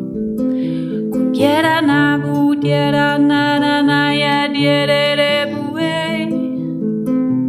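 Ngoni harp tuned to 432 Hz plucked in a repeating low pattern. A wordless sung voice comes in about a second and a half in, slides up and holds one long note, fading out about two seconds before the end.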